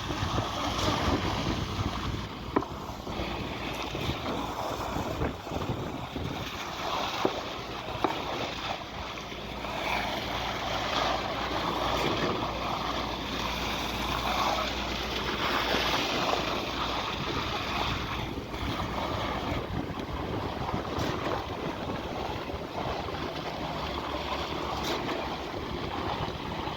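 Steady construction-site machinery noise with wind on the microphone and a low hum underneath, broken by a few sharp knocks about two and a half, seven and eight seconds in.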